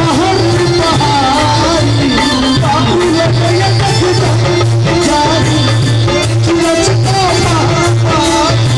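A man singing a nachari, a folk devotional song to Shiva, into a microphone over a loud PA. The melody rises and falls over steady held accompaniment tones and light percussion.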